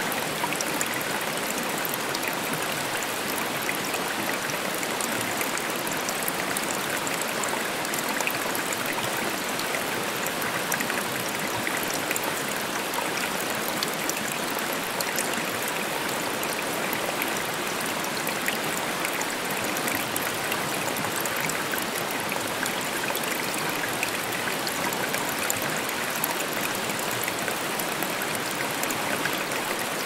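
Waterfall: a steady, unbroken rush of falling water with fine splashing.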